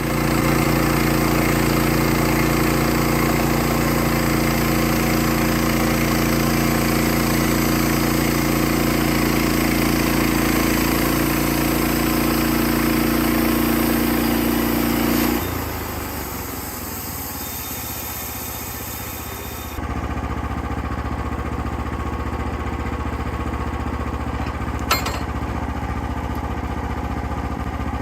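An engine running steadily. The sound changes abruptly about halfway through, drops, then picks up again to a steady run, with one sharp click near the end.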